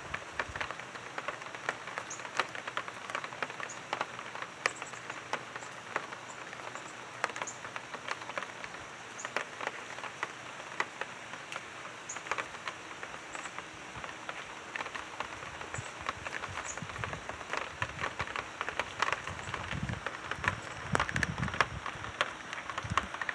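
Rain falling steadily, with many separate drops ticking sharply over the steady hiss; it grows a little fuller near the end.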